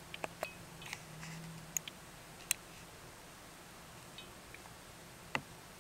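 Burmese star tortoise biting into chopped leafy greens: irregular sharp, crisp clicks, about a dozen, most of them in the first half and one more near the end.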